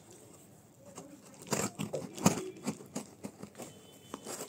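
Box cutter blade slicing through the packing tape and shipping label along the seam of a cardboard box. There is a run of sharp scratchy cuts and clicks starting about a second and a half in, the loudest just past two seconds.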